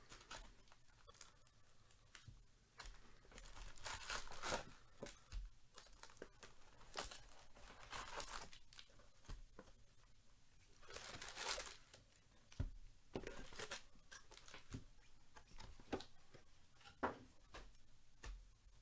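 Plastic-wrapped baseball card packs crinkling and rustling as they are handled, pulled out of a hobby box and set down, with a few louder tearing-like bursts and light taps.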